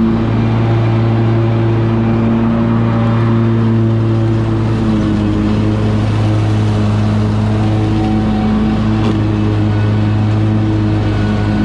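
Kubota 725 zero-turn mower's engine running steadily at mowing speed, its deck cutting through tall grass. The drone holds an even pitch with no real change.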